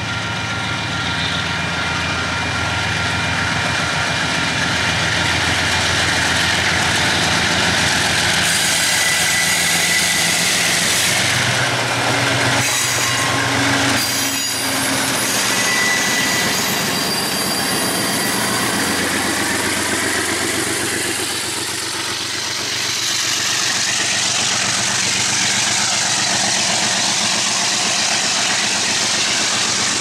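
Two KiwiRail DX-class diesel-electric locomotives working hard up a steep grade, their engines growing louder and passing about halfway through. Container wagons then roll by with a clickety-clack and brief wheel squeal.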